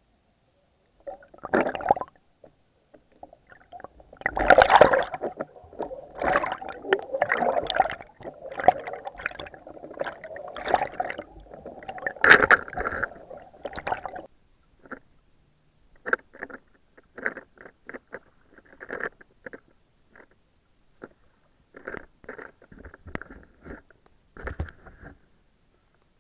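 Water sloshing and gurgling against an action camera's waterproof housing as it is moved through shallow sea water: a dense, irregular run of splashes while the camera is under the surface, then separate short splashes from about halfway, once it is at the waterline.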